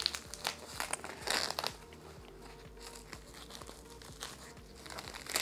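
Paper wrapping rustling and crinkling as it is pulled off a potted plant cutting, loudest about a second in, then softer scattered rustles.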